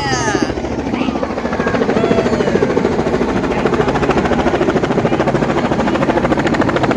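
Helicopter rotor blades chopping with a fast, even beat, close and loud.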